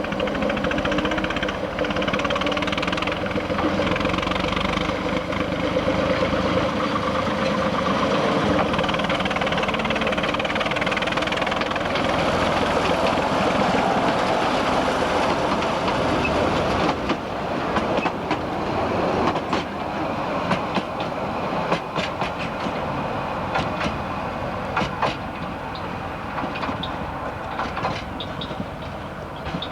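Narrow-gauge train running on the track: a steady rumble, with sharp clicks and clanks of wheels and couplings coming through more clearly in the second half.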